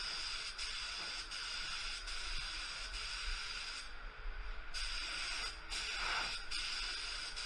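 ITALCO Shine 1 HVLP gravity-feed spray gun hissing as it sprays paint, with compressed air rushing through the nozzle. Short breaks where the trigger is let off between passes, the longest about four seconds in.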